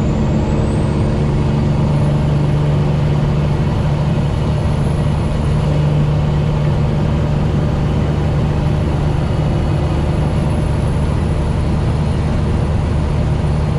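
Cummins ISX inline-six diesel in a heavily loaded cattle truck running steadily under load at highway speed, a constant low drone with a thin high whine above it.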